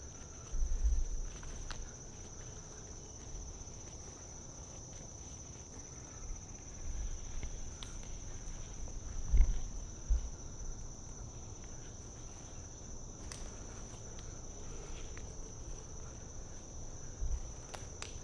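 Steady, high-pitched drone of insects in the trees, with a few low thumps, the loudest about halfway, and a handful of sharp ticks.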